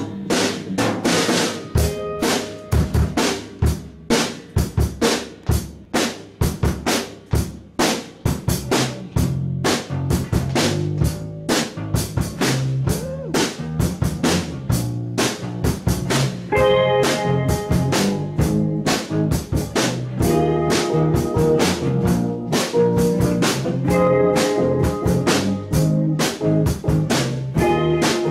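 A group jamming on drums and hand percussion, a steady run of sharp strikes. About halfway through, sustained chords from a pitched instrument join the beat.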